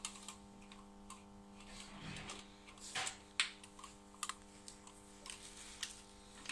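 Scattered light clicks and knocks, like metal tools and parts being handled, over a steady low electrical hum.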